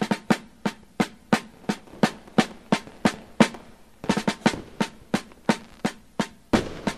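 Music: a solo drum beat of sharp, ringing snare-like strikes, about three a second, with a quick flurry of hits about four seconds in.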